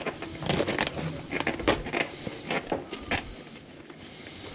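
Camera gear being handled and fitted into its boxes and cases: an irregular run of small clicks, knocks and rustles.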